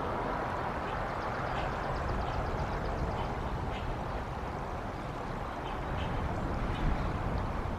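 Outdoor wind rumbling and hissing on the microphone, with small birds giving short, faint chirps every second or so in the background.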